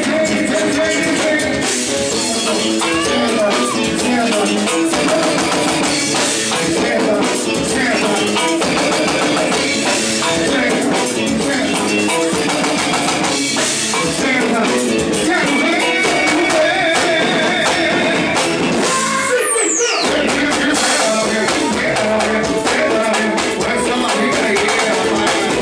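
Live pagode band playing: singing over drums and percussion. About three-quarters of the way through, a high sweep falls steeply in pitch while the bass drops out for a moment.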